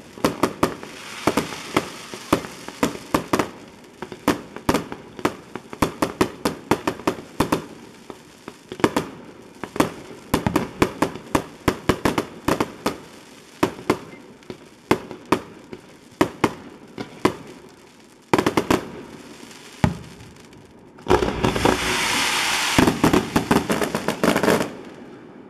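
Rapid barrage of aerial fireworks: a continuous run of sharp bangs, several a second, with crackling. Near the end a dense hissing rush with quick crackles builds under the bangs, then stops just before the end.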